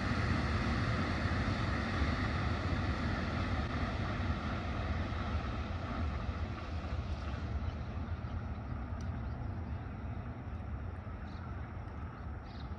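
A steady low rumble from a vehicle that gradually fades as it moves away, with a few faint ticks near the end.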